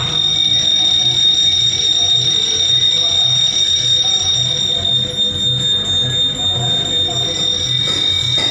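Fire alarm system sounding during a function test: a steady high-pitched electronic alarm tone, with a low pulsing about twice a second underneath.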